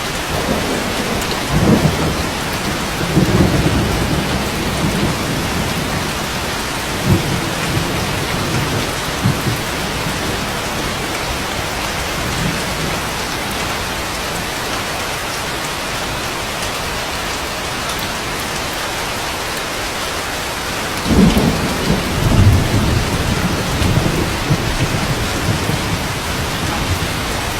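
Steady rain with rolling thunder: low rumbles from about a second in until about five seconds, and again from about twenty-one seconds in to the end.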